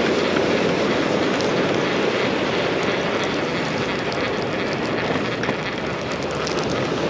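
Steady wash of ocean surf with wind noise on the microphone.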